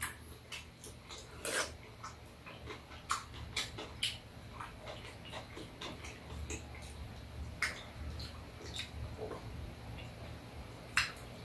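Quiet mealtime sounds: sparse, light clicks and taps of a metal spoon and chopsticks against bowls and dishes, with one sharper clink near the end.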